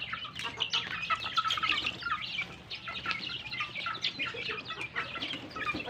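A flock of native chickens with young chicks feeding: a steady stream of short, high chick peeps, with a few lower clucks from the hens near the end.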